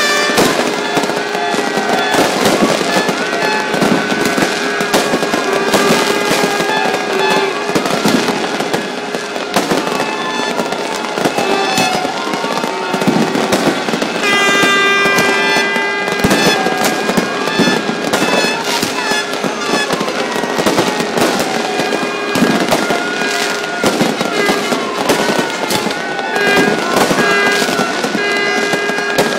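Aerial fireworks going off in rapid succession: constant bangs and crackling, with whistles that fall in pitch every couple of seconds. A steady droning tone runs underneath.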